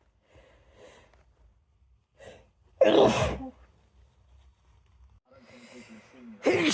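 A woman with a head cold sneezing twice. Each sneeze comes after a catching breath, the first about three seconds in. Before the second, near the end, there is a longer drawn-in, voiced build-up.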